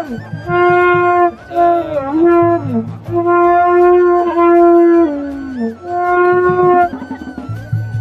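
Several long straight traditional horns blown together, sounding loud held notes of about a second each that overlap and often slide down in pitch at the end of a breath.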